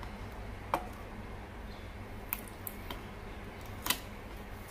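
Cardboard box being handled and pried open by fingers: a few short scratchy clicks, about four, the loudest near the end, over a steady low room hum.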